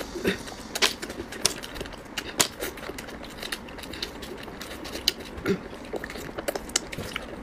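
Close-up eating sounds: irregular sharp clicks and crackles of shellfish shells being peeled by hand, and of chewing.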